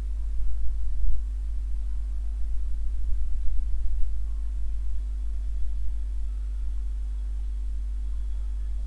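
Hydraulic loading unit of a concrete flexural strength testing machine running with a steady low hum and a few constant higher tones while it loads a concrete beam.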